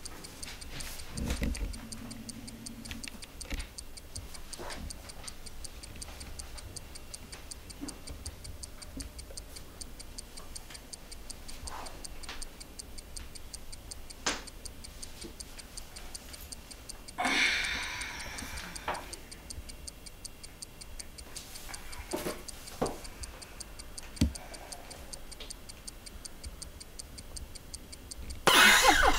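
A clock ticking steadily, with a few faint clicks and a short rustle about two-thirds of the way in. A much louder noise cuts in just before the end.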